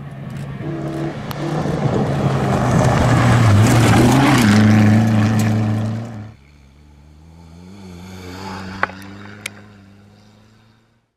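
Rally car passing at speed on a gravel stage: engine at high revs with loose gravel spraying, getting louder to a peak about four seconds in as it goes by close, with a shift in engine pitch around then. About six seconds in the sound drops suddenly to a quieter, more distant engine that swells a little and fades out, with two sharp clicks near the end.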